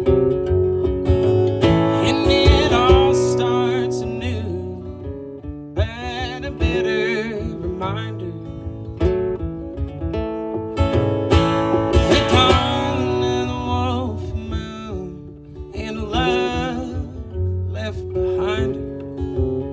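Live acoustic band playing a waltz: acoustic guitar strumming under a melody line with vibrato.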